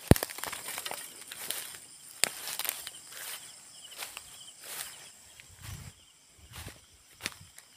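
Footsteps and rustling through dry grass and leaves at night, an irregular run of crackles and soft thuds, with a sharp knock right at the start from handling gear. A faint steady high drone of night insects runs underneath.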